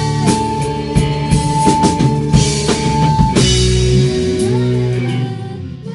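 Live rock band playing an instrumental passage with drum kit and electric guitars. A long high note is held over steady drumming for about three seconds. A lower note with bends follows, then the drums drop away and the playing quietens near the end.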